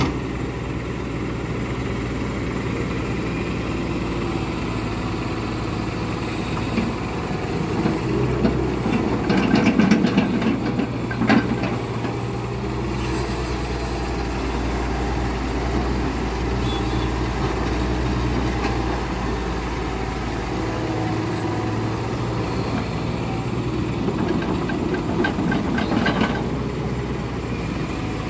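Hitachi hydraulic excavator's diesel engine running steadily while it works, getting louder for a few seconds around ten seconds in, with a few sharp knocks there and some clatter near the end.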